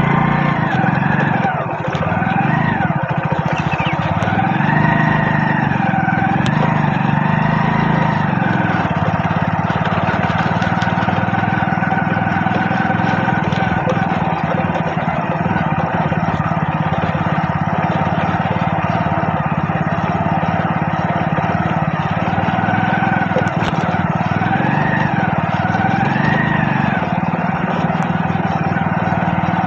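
Motorbike engine running steadily under way, with a wavering voice or singing over it at times.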